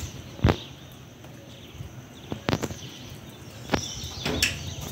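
Steady rain falling over the rooftops, with a few sharp knocks cutting through it, the loudest about half a second in.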